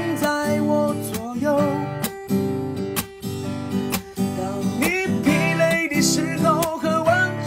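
A song with strummed acoustic guitar and a voice singing in Chinese.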